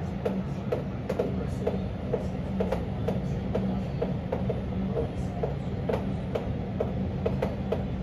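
Wall-mounted split air conditioner's indoor unit running with a steady hum. Light clicks or ticks come through it, about two or three a second at uneven spacing.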